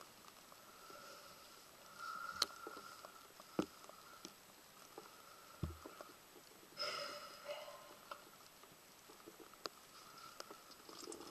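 Faint soft wet squishing of hands working lather through wet hair, with a few small clicks scattered through and a short fuller rustle about seven seconds in.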